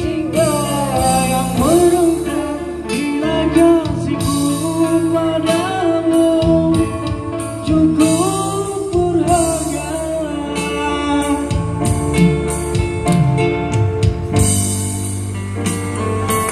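Live band playing a Malay pop ballad: a man singing through a PA over amplified acoustic guitar, electric bass and keyboard, with a steady beat.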